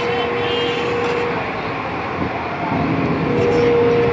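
JCB tracked excavator's diesel engine running under load as the machine is worked onto a flatbed trailer, with a steady whine that holds for about the first second and comes back near the end.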